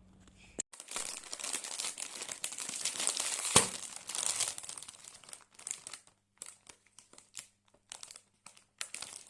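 Plastic packaging crinkling as it is handled: a dense crackle for a few seconds, with one sharp click about three and a half seconds in, then short scattered crackles.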